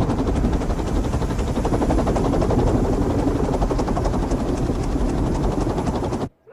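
A small wind turbine spinning fast in a strong airflow, with a rapid whirring flutter like rotor blades. The sound cuts off suddenly near the end.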